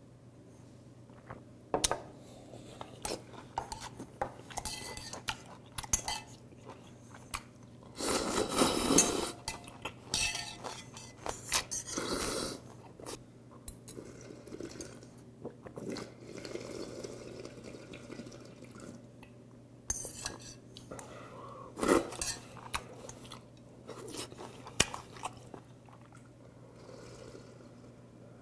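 Close-up eating sounds: metal chopsticks clicking and scraping against a stainless steel bowl, with slurping of cold squid mulhoe broth drunk straight from the bowl and some chewing. The longest, loudest stretch comes about eight seconds in.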